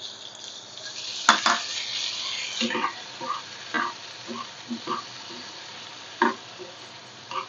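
Chopped tomatoes sizzling in hot oil in a kadhai. The loud sizzle dies down after about two and a half seconds, and a spoon then knocks and scrapes against the pan at irregular intervals as the mixture is stirred.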